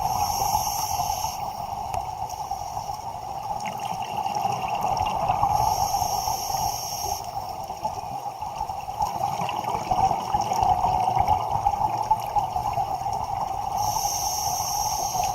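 Scuba breathing heard underwater through a regulator: a hissing inhalation about every seven seconds, with bubbling and gurgling between, over a steady hum.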